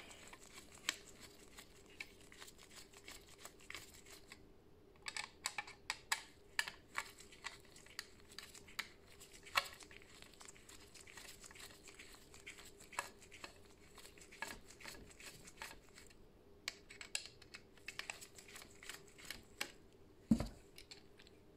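Faint scattered clicks and light plastic rattles from a small screwdriver working on a Samsung PowerBot robot vacuum's plastic wheel-drive housing, with one dull thump near the end.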